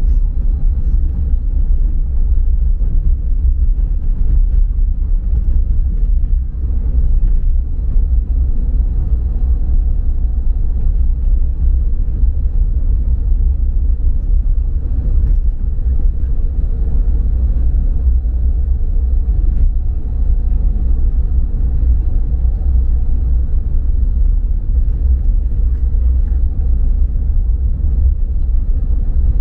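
Steady low road rumble of a moving car, heard from inside the cabin while driving on a paved road.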